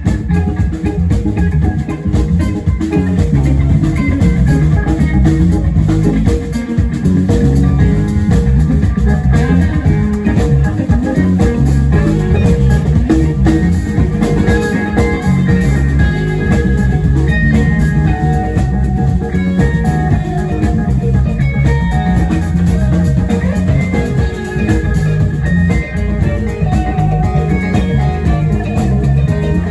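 Live rock band playing: electric guitars, keyboard, bass and drum kit.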